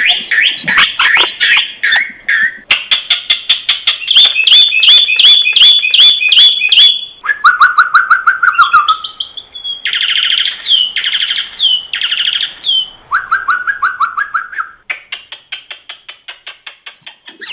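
Common myna calling: fast runs of repeated chattering notes that switch to a new phrase every couple of seconds, high phrases alternating with lower ones. It grows fainter near the end.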